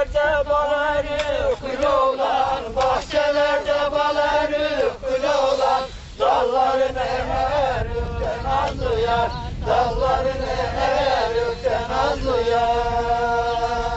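Village dancers singing a Turkish folk song together, unaccompanied, in long held notes with short breaks between phrases. A low rumble lies underneath.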